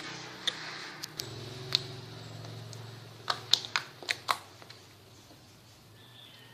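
Slime being handled, giving a series of sharp pops and clicks, a few at first and then a quick cluster of about half a dozen around three to four seconds in. A low steady hum sits underneath and fades out soon after the cluster.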